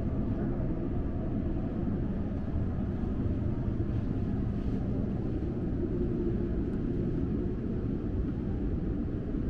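Steady low rumble of the cruise ship Nippon Maru under way, its engines and machinery droning through the hull, heard inside a lounge.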